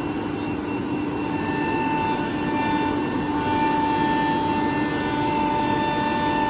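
CNC router machinery running: a steady mechanical hum with a constant whine, and a few brief high chirps about two and three seconds in.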